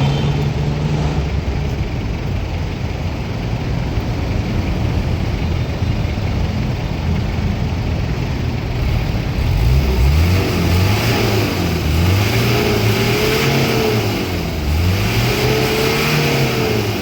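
Mitsubishi L300 van's diesel engine idling steadily, then revved up and let fall back about three times in quick succession during the last seven seconds, as for a smoke check of the exhaust.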